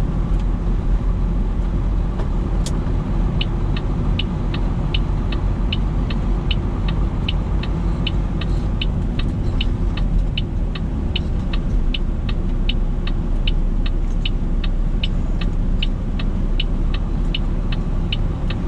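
Semi-truck engine running, heard from inside the cab. A few seconds in, a steady quick series of short high ticks starts, about three a second, and keeps going.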